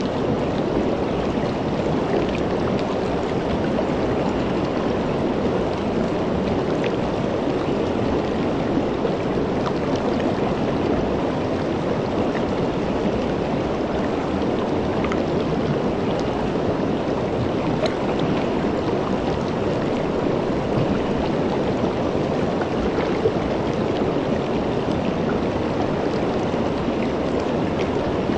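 Shallow river flowing over and around rocks: a steady rush of water with scattered small splashes and trickles.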